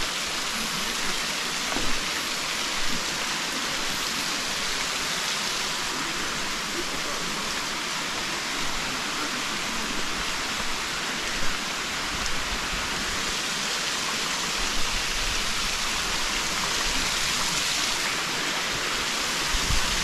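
Waterfall rushing: a steady, even hiss of falling water, with a few soft knocks.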